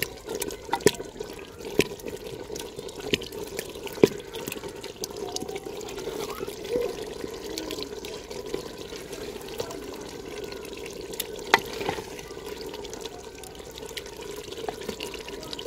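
Cooked turnips and spinach being mashed with a wooden ladle in a clay pot: wet squelching and bubbling, broken by sharp knocks of the ladle against the pot's clay wall.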